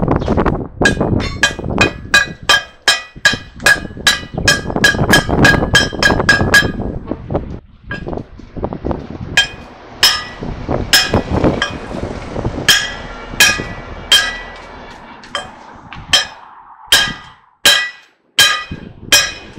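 Hammer striking steel to drive a bushing into a truck's steering knuckle, each blow ringing. A fast run of blows, about three a second, is followed after a short pause by slower blows, about one a second.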